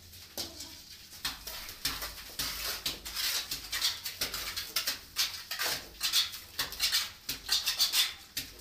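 Sand-cement mortar flung by hand onto a ceiling, landing as a rapid, irregular run of wet slaps and spatters that gets busier from about a second in, along with hand scoops from a metal mortar pan.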